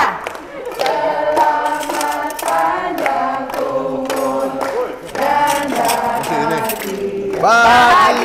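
A group of people singing together in unison, with hand-clapping along.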